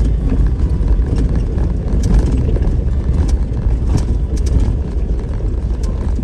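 Off-road vehicle driving a rough dirt trail: a steady low rumble of engine and tyres, with scattered knocks and rattles from stones and the body.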